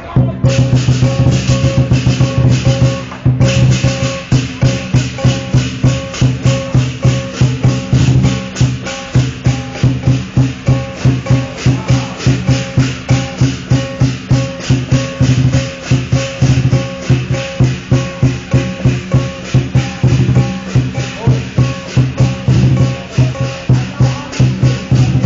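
Dragon-dance percussion: drum and clashing cymbals beating a steady, fast rhythm, very loud, with a sustained ringing tone underneath.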